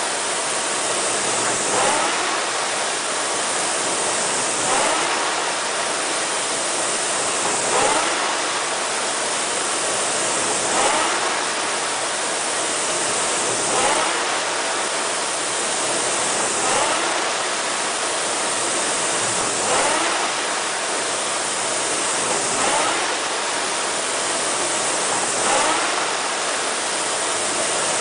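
Concept2 indoor rower's fan flywheel whirring steadily, surging with a rising whoosh on each drive about every three seconds. The pace is a low stroke rate of about 20 strokes a minute.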